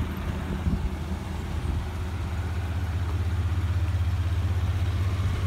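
Chevrolet S-10 pickup's engine idling with a low, even throb that grows louder about two seconds in.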